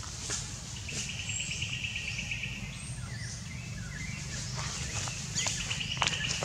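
Wild birds calling: a rapid trill, heard twice, among short chirps, over a low steady rumble.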